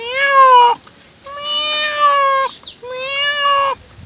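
A man imitating a cat's meow with his voice: three drawn-out meows, each rising and then falling in pitch, the middle one the longest.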